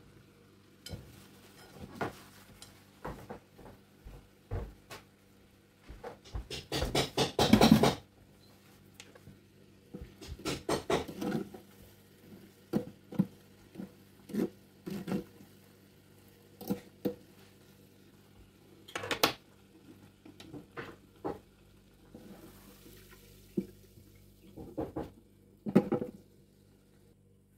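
Kitchen handling sounds: scattered clinks and knocks of utensils and fried fish pieces against a glass baking dish and the deep fryer, with a louder rattling cluster about seven seconds in.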